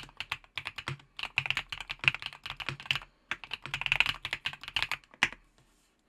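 Typing on an EPOMAKER HACK 59 gasket-mount keyboard with factory-lubed Wisteria V1 linear switches: fast runs of keystrokes with brief pauses, ending on a single keystroke a little after five seconds in.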